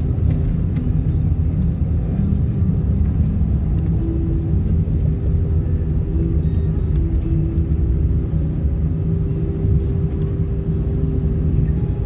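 Inside an airliner cabin as the plane rolls along the wet runway after landing: a steady, loud low rumble of the engines and landing gear, with a humming tone that comes and goes.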